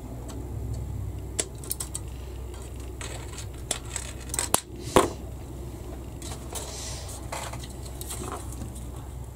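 A plastic model-kit sprue being handled and a part cut free with sprue cutters: a scatter of light plastic clicks and rattles, with one sharp snap about five seconds in. A low steady hum runs underneath.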